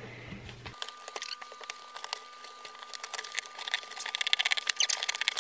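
Packing tape on a cardboard box being cut and peeled away: a quick run of small crackles and ticks that gets busier toward the end.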